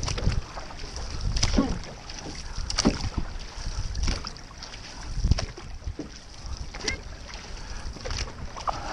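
Paddles of a six-person outrigger canoe (OC6) stroking through the water in time with each other, one splash about every second and a half.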